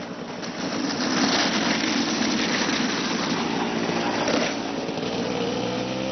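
Small engine running with a loud rushing noise for the first few seconds. Near the end the engine note climbs steadily in pitch.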